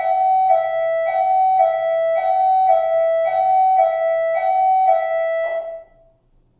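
12-volt six-tone electronic siren sounding a two-tone hi-lo pattern, alternating between two close pitches about twice a second, then cutting off near the end.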